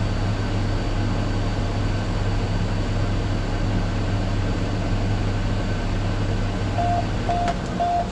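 Steady low mechanical hum inside a combine cab, with a run of short, evenly spaced beeps from the cab's warning alarm near the end.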